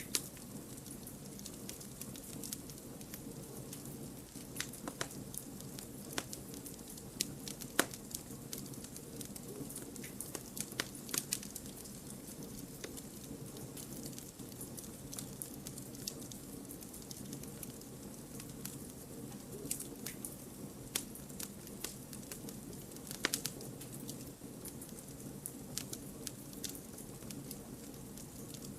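Wood campfire burning: a steady low rush of flame with frequent irregular crackles and sharp pops of burning logs, a few louder pops standing out.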